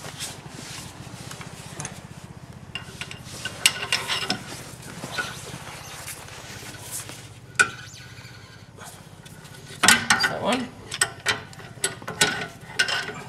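Metal tool clicks and knocks as a socket and breaker bar are worked on a rear brake caliper bolt to tighten it: scattered clicks, one sharp click about halfway, then a quick flurry of clicks near the end.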